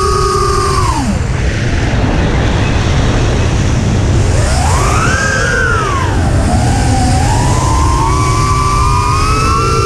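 3-inch FPV quadcopter's brushless motors whining, with the pitch following the throttle. It drops sharply about a second in, swells up and back down around the middle, then climbs again near the end, over a steady low rush of wind.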